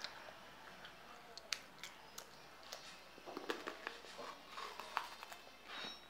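Close-up mouth noises of eating: irregular wet lip smacks and crunchy clicks of chewing a biscuit, deliberately exaggerated in imitation of mukbang eating sounds. The clicks are sparse at first and come thicker from about halfway.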